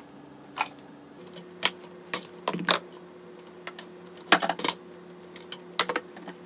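Scattered light taps and clicks, a dozen or so at uneven intervals, as a baby handles and pulls board books from a low shelf, over a faint steady hum.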